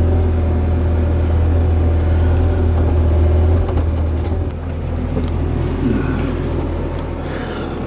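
Excavator's diesel engine running steadily with a deep hum, its note dropping about three and a half seconds in and running on rougher and a little quieter.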